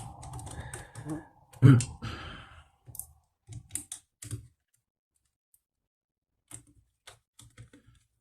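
Scattered light clicks and taps of laptop parts being handled and fitted during reassembly, with one louder knock about one and a half seconds in and a pause of a couple of seconds before the clicking resumes.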